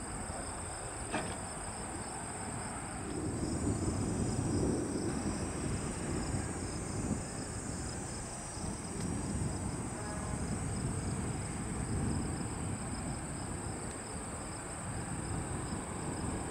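Insects, crickets, trilling steadily at a high pitch, over a low, uneven rumble that swells a few seconds in and again later.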